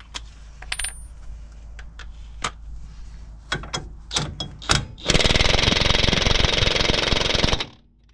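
A few sharp metal clinks and knocks, then about five seconds in a cordless impact wrench hammers on the nylock nut of an outer track rod end for about two and a half seconds and stops suddenly. The nut does not tighten: the track rod end's tapered stud is turning in the hub knuckle.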